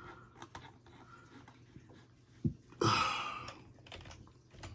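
Typing and clicking on a computer keyboard: scattered key clicks, with a thump and a brief louder noise about two and a half to three seconds in.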